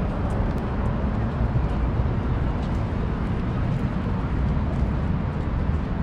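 Outdoor downtown city ambience: a steady, even low rumble with no distinct events.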